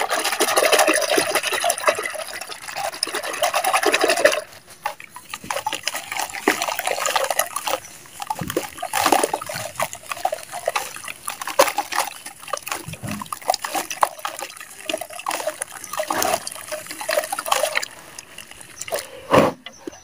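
Hands squeezing and stirring soaked dirt chunks in a plastic basin of frothy water: continuous squelching and sloshing for about the first four seconds, then scattered wet splats and splashes as a sodden clump is lifted, crumbles and falls back into the water.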